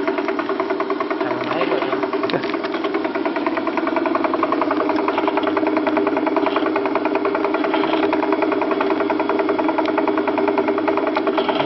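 Continuous band sealer running: its drive motor hums steadily while the belts and chain turn with a fast, even ticking.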